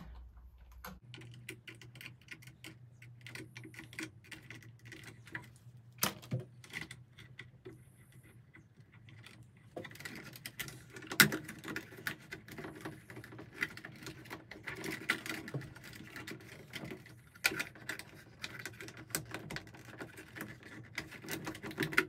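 Bare copper ground wires being twisted together with lineman's pliers and a wire nut screwed onto them in a plastic electrical box: irregular small clicks, ticks and scrapes of metal and wire, with a sharper snap about eleven seconds in.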